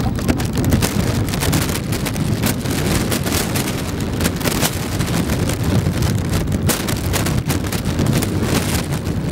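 Wind buffeting the microphone: a steady low rumble with irregular crackling gusts.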